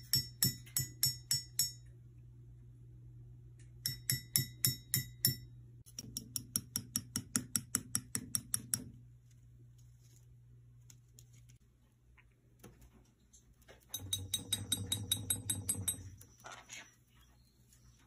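A green-cheeked conure tapping its beak against a ceramic mug, each tap a sharp clink that rings with a clear tone. The taps come in four quick runs of about four a second.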